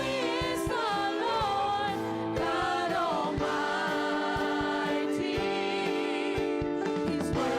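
Congregational worship singing: voices singing a slow melody with vibrato over held, sustained musical tones.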